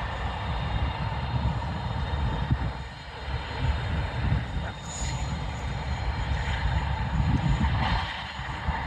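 McDonnell Douglas MD-11 freighter's jet engines running at taxi power: a steady low rumble with a faint high whine above it.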